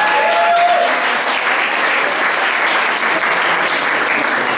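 Audience applauding steadily, with a few voices calling out in the first second.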